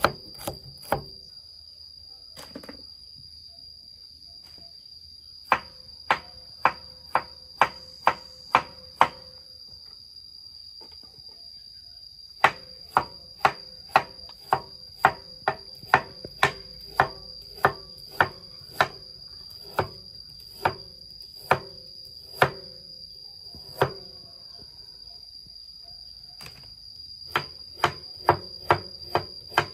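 Large kitchen knife slicing fresh bamboo shoots, each stroke striking a wooden cutting board. The knocks come about two a second, in runs broken by pauses of a few seconds. A steady high-pitched insect drone runs underneath.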